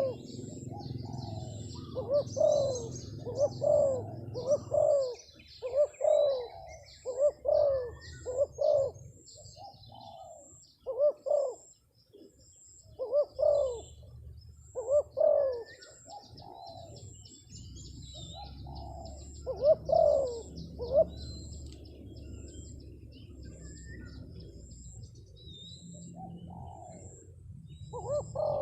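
Spotted dove (terkukur) cooing: a string of short, arched coo notes in repeated phrases with brief pauses between them. Other small birds chirp faintly and high in the background.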